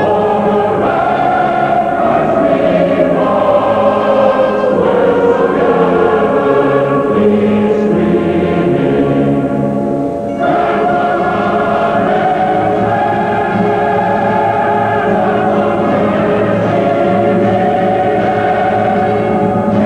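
Choir singing slow, sustained chords. One line slides downward over the first several seconds, and the sound dips briefly about halfway through before the held chords resume.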